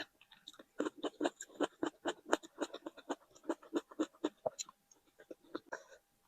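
Close-up chewing and mouth sounds of someone eating: rapid, irregular wet clicks and crackles, with a short pause about five seconds in.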